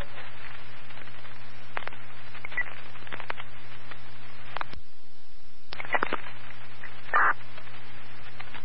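Fire-dispatch radio scanner channel open between transmissions: a steady hum and static hiss with scattered clicks, the hiss dropping out for about a second about five seconds in.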